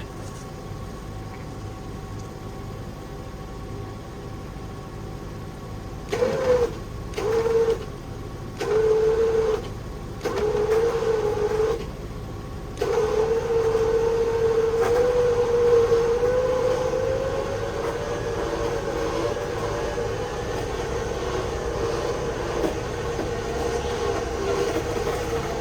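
Electric winch motor whining under load as it pulls in the winch cable to roll a flipped Jeep back over. It is run in four short bursts a few seconds in, then held on steadily.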